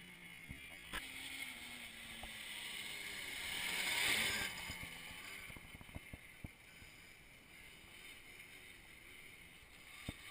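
Quad bike (ATV) engine running, faint. It grows louder to a peak about four seconds in, then fades as the quad rides away. A few light knocks on the microphone.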